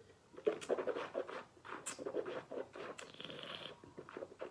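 A sip of wine being tasted: small wet slurping and swishing noises in the mouth, with a short hiss of air drawn in through the wine about three seconds in.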